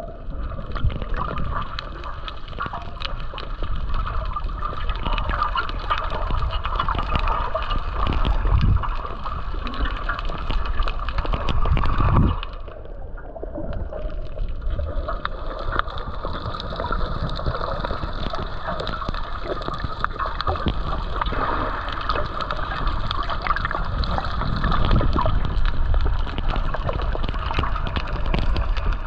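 Water sloshing and gurgling, with a steady dense wash of noise that drops briefly about halfway through.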